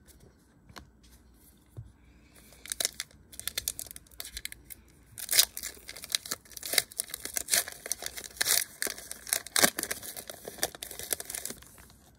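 A foil Goodwin Champions trading-card pack wrapper being torn open and crinkled by hand. It is a dense run of crackles and rips starting about two and a half seconds in and stopping just before the end, with the loudest rips midway and near the end.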